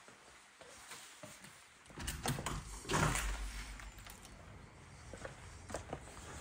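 A PVC French window being handled as someone steps out onto a balcony, with a few light clicks and knocks. From about two seconds in, a low wind rumble sets in on the microphone, with a louder rush about a second later.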